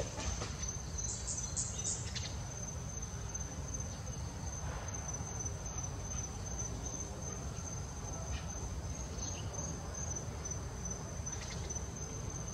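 Insects droning with one steady high-pitched tone, over a low background rumble.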